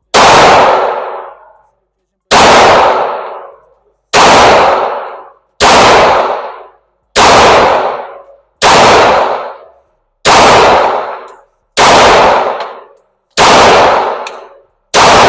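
Glock 45 9mm pistol fired ten times in slow, steady succession, about one shot every one and a half to two seconds, each shot followed by a long echoing tail.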